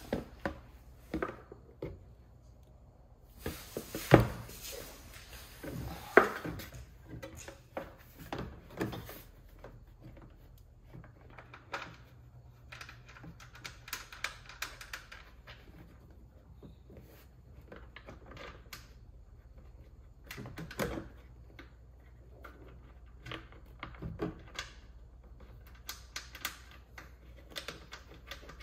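Clicks, taps and knocks of a bottom undertray panel and its fastening hardware being handled and fitted, scattered irregularly, with a few sharper knocks, the loudest about four seconds in.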